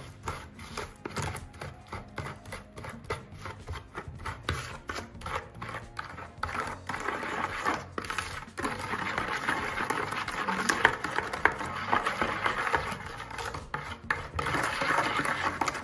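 Metal spoon scraping and tapping against the inside of a plastic mixing bowl as it mashes fresh yeast with sugar and salt into a runny paste. Short quick strokes at first, turning to steadier, louder stirring and scraping a little before halfway.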